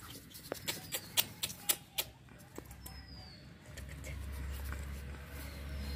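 Scattered light clicks and taps of puppies being handled on concrete, with a short high chirp about halfway in. A low steady rumble then sets in and carries to the end.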